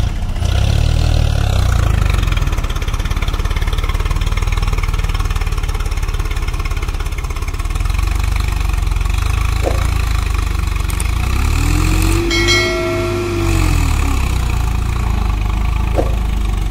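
Tractor diesel engine running loudly and steadily, revving up and falling back once about two-thirds of the way through.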